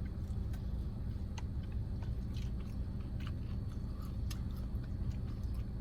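Someone chewing food close to the microphone, probably a fried mozzarella stick, with faint sharp clicks of bites and chewing about once a second over a steady low hum.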